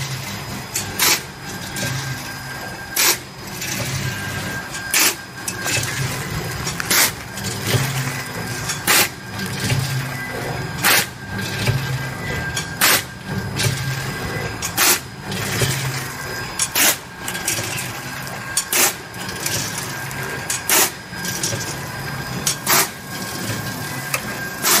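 ATM-320C automatic vertical form-fill-seal packing machine running through its bagging cycle: a sharp mechanical clack about once a second, every other one louder, over a steady motor hum and a faint steady whine.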